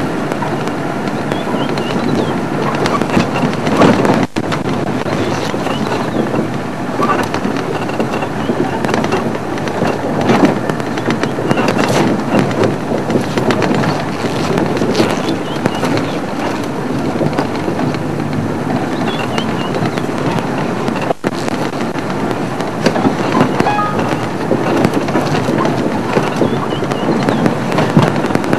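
Safari game-drive vehicle driving along a rough dirt track: steady engine and road noise with many crackles and knocks from the bumpy ride.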